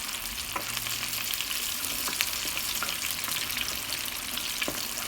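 Two cornstarch-coated chicken legs deep-frying in hot oil: a steady sizzle with scattered crackles and pops.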